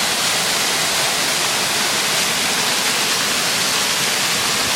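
Creek waterfall: a steady rush of falling water, unbroken throughout.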